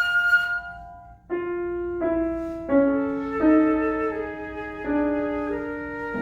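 Flute and piano playing classical chamber music: the flute's held note fades out about a second in, then the piano enters alone with slow, separate notes and chords, a new one struck every half second or so, building up in layers.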